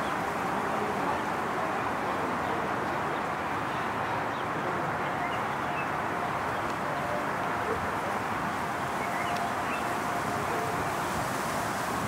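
Steady outdoor background noise with a faint murmur of distant voices and a few faint high chirps scattered through it.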